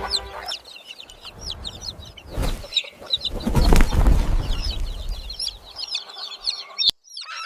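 Many birds chirping, with rapid short high calls overlapping one another. Low rumbling bursts come about two and a half seconds in and again near the middle, and the sound cuts off suddenly near the end.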